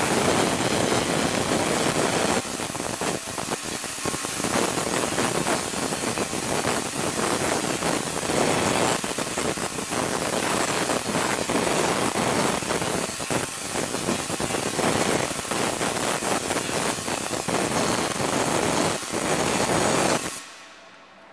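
Large Tesla coil discharging continuously, its arcs making a loud, steady, dense crackle that cuts off suddenly near the end.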